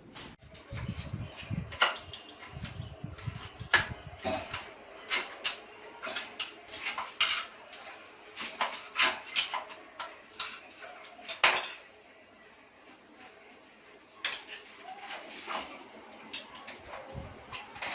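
Irregular clinks and knocks of hard objects being handled and set down, with two louder knocks about four seconds in and near the middle.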